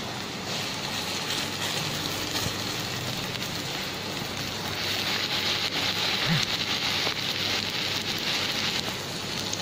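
Shami tikki patties sizzling in shallow oil on a hot tawa. The sizzle is steady and grows a little louder about halfway through.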